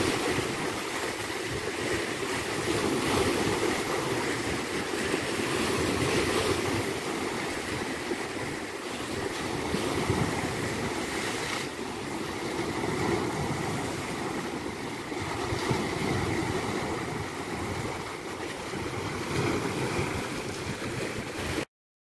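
Small Black Sea waves washing in over pebbles and broken concrete slabs at the water's edge, swelling and easing every few seconds. The sound cuts off suddenly near the end.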